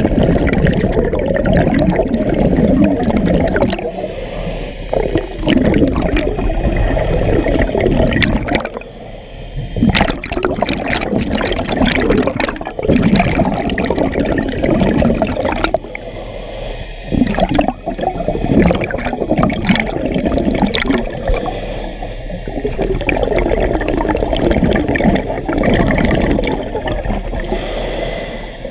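A scuba diver's exhaled bubbles from the regulator, heard underwater through the housing of a mask-mounted GoPro. Long bubbling rushes come every five to six seconds, with short quieter breaks between them where the diver inhales.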